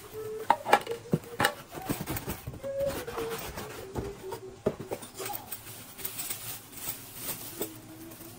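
Plastic bag crinkling and stainless steel mixer beaters clinking against each other as they are unwrapped by hand, a string of sharp clicks and rustles that are busiest in the first few seconds.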